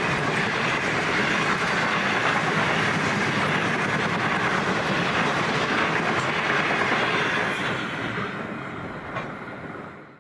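Container wagons of a long freight train rolling past on the rails, a steady noise of steel wheels on track. It fades away over the last few seconds as the end of the train goes by.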